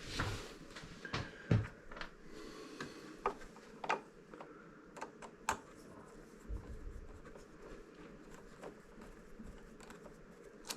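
Scattered small plastic clicks and taps from handling a Roomba side brush while trying to fit it onto the side-brush motor shaft.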